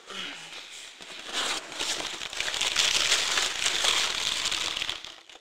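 Paper crumpling and rustling as a gift box is unwrapped and its packing paper pulled aside. It is a dense, continuous crackle that grows louder about a second and a half in and dies away near the end.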